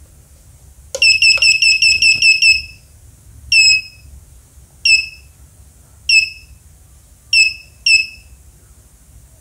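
Electronic beeper of an Arduino math-practice machine sounding its correct-answer signal. A faint button click about a second in is followed by a quick run of about nine short high beeps, then five single beeps spaced about a second apart.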